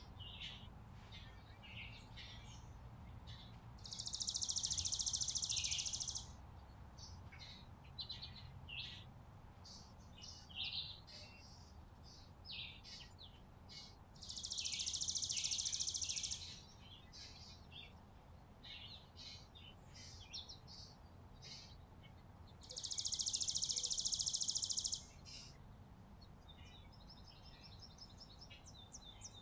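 Chickadees and other small birds giving short, high chirps and calls throughout. Three loud hissing sounds, each about two seconds long and about nine seconds apart, stand out above the birds.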